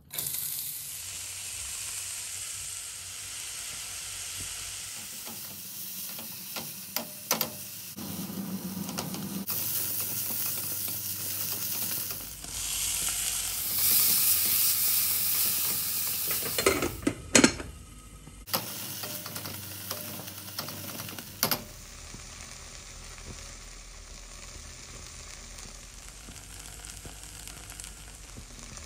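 Sliced onions, then chopped tomatoes, frying in hot oil in a nonstick pot: a steady sizzle that starts suddenly as the onions hit the oil, with a metal spatula stirring and scraping through it and a few sharp clacks against the pan, the loudest about two-thirds of the way in.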